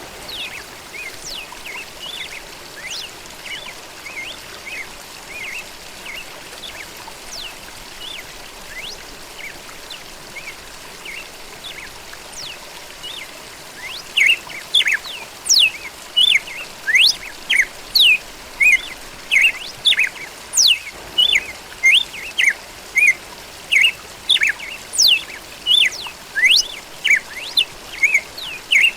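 Red-cowled cardinal (galo-da-campina) singing. Softer chirping at first, then from about halfway loud, sharp, quick sliding notes repeated about twice a second, over a steady trickle of water.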